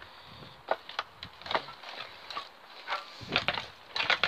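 Footsteps and scuffs on a hard, debris-strewn floor: about ten uneven knocks and scrapes, the loudest near the end.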